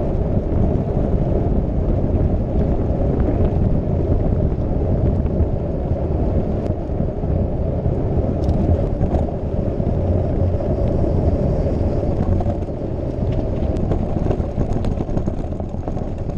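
Steady low rumble of a bicycle riding over a cobbled stone road, the tyres and frame shaking on the paving stones, with a few faint clicks.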